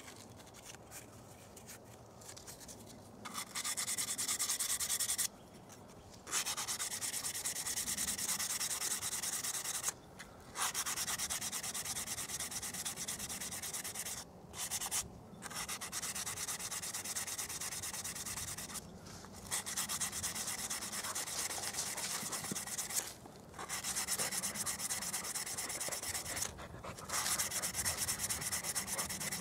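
Hand sanding of the cut edge of a brown glass jar with abrasive cloth: a dry, hissing rasp of rapid short strokes. The sanding runs in spells of a few seconds with brief pauses, and picks up properly about three seconds in.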